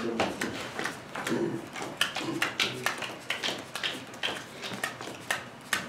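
Playing cards being dealt one at a time onto a tabletop: a quick, irregular run of light taps and flicks from more than one pair of hands.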